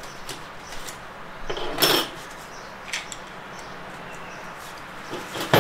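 Metal clinks and light scrapes of automatic-transmission clutch-hub parts being handled: the steel snap ring coming free and the clutch plates and steels being lifted out of the hub drum. A few sharp clinks come about a second and a half in, and the loudest clink comes near the end.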